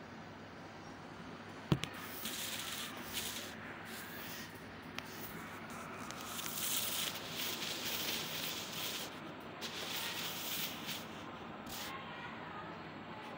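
Soft rustling and rubbing noise in uneven stretches, after a single sharp click about two seconds in.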